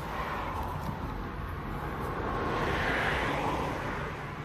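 A vehicle passing by, its road noise swelling to its loudest about three seconds in and then fading.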